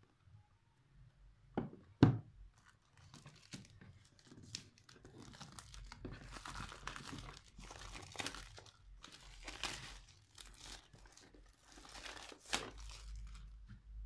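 Clear plastic shrink wrap being torn and peeled off a smartphone box, crinkling and crackling for most of the stretch. Two sharp knocks of the box being handled come about two seconds in.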